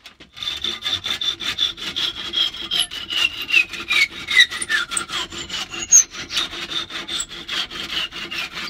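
Handsaw cutting through the protruding top of a wooden axe handle and its hardwood wedge, in quick, even back-and-forth strokes, several a second. A high ringing tone slides slowly lower through the cut.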